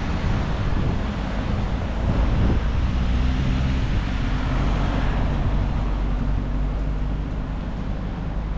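Steady low rumble of road traffic or a vehicle, with wind buffeting the microphone; a higher hiss swells about halfway through and then eases off.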